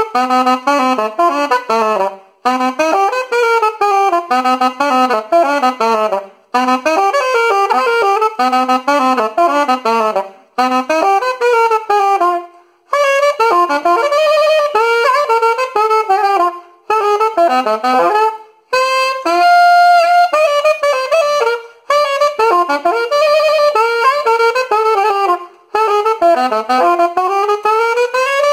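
Solo saxophone playing a lively melody of quick runs of notes, in short phrases split by brief breaths every two to four seconds. There is a longer held note about two-thirds through, and a rising slide into a held note at the end.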